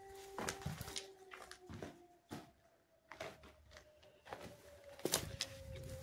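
Irregular footsteps scuffing over concrete rubble and pushing through tall weeds, with a faint steady hum in the background that sinks slowly in pitch.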